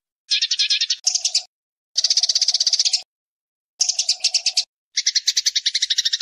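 Eurasian tree sparrows giving fighting calls: rapid chattering chirps at about a dozen a second, in five short bursts separated by brief silences.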